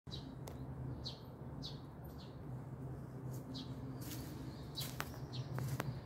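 A small bird calling in short, falling chirps, one every half second to a second, over a steady low hum, with a few sharp clicks near the end.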